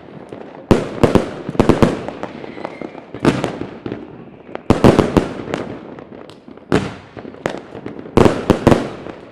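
Consumer firework cake firing a volley: clusters of sharp, loud bangs about every second or two as its shells burst, with crackle between the volleys.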